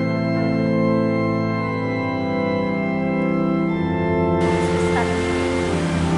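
Organ music, held chords that change every second or two. About four seconds in, a steady hiss comes in suddenly underneath it.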